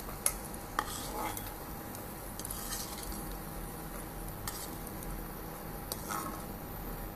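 Metal slotted spoon lifting fried cashews and almonds out of hot ghee in a kadai, clinking and scraping against the pan and a steel bowl several times, over a light sizzle of the ghee.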